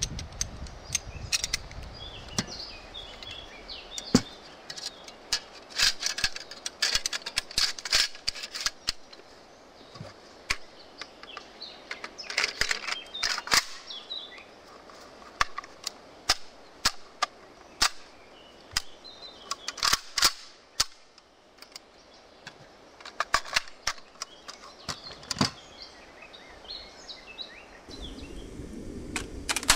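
Clicks and clacks of a CZW 556 rifle's parts being handled and fitted together by hand during reassembly, coming in clusters, with birds chirping faintly behind.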